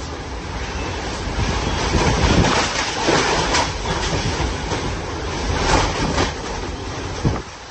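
Hurricane wind roaring steadily and swelling in gusts, with low rumbling buffeting on the microphone.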